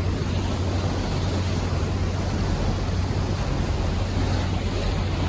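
Sightseeing cruise boat's engine running with a steady low drone, under wind on the microphone and rushing water.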